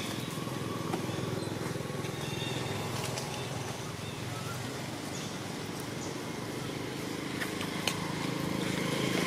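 Steady low motor hum, with a few sharp clicks scattered through it.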